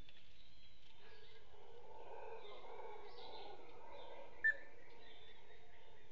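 Howler monkeys howling, a low, rough chorus that swells through the middle, with bird calls scattered above it and one short, sharp bird note about four and a half seconds in.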